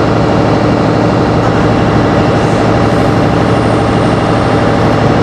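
A steady mechanical hum, like an engine idling, with a constant low drone and no change in pitch or level.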